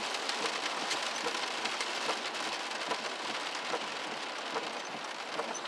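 Steady rain falling, with many separate drop impacts ticking close by over an even hiss; it eases slightly near the end.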